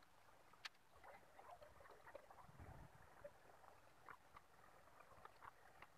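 Faint, scattered little clicks and scratches of resistor leads being pushed through the holes of a printed circuit board and bent over by hand.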